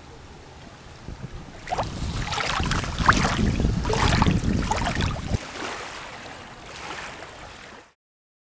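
Small waves washing and splashing over a pebbly shoreline, starting about two seconds in, loudest in the middle, then fading until the sound cuts off near the end.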